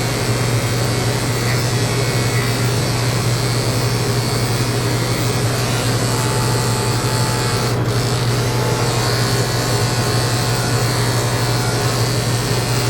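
Electric dog grooming clippers with a #10 blade running with a steady hum, over a constant rushing air noise.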